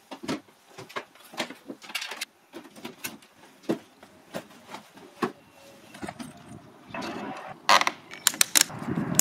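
Cycling kit being packed by hand into a plastic crate: scattered knocks, clicks and rustles as shoes and a helmet go in. A quick run of sharper clicks near the end comes as a hand handles a bicycle at its crank.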